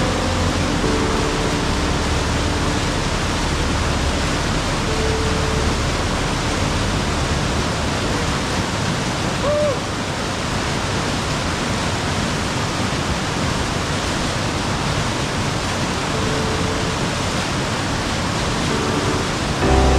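Rushing creek water running steadily in a close, even hiss.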